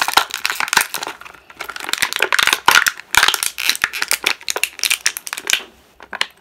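Clear plastic blister packaging crinkling and crackling in irregular bursts as a small doll and its pet are worked out of it by hand; the crinkling stops near the end.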